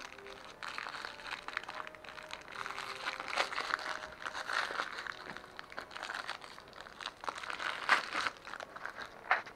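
Plastic wrapping of a small LOL Surprise Lils toy crinkling as it is picked open by hand, in irregular crackles, with a few louder crinkles near the end.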